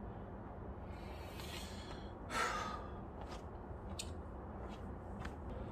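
A man's audible sigh, a short breath out, about two and a half seconds in, over a faint steady background hum. There are a few faint clicks later on.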